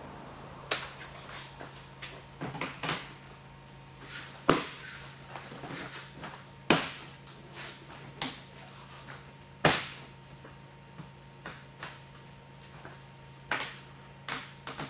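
Plastic side panel of a Polaris Pro snowmobile being fitted back on: a series of sharp clicks and knocks as it is pressed and snapped into place, the loudest about four and a half, six and a half and nine and a half seconds in. A faint steady hum runs underneath.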